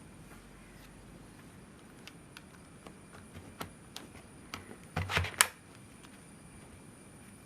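Light scattered clicks and taps of a laptop and its small parts being handled, with a short cluster of louder clicks and knocks about five seconds in.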